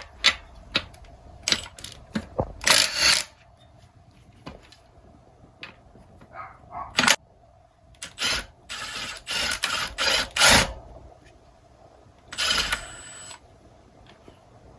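Hand work on a BMX wheel during a tire and tube change: scattered sharp clicks and knocks, with a few short stretches of scraping and rustling.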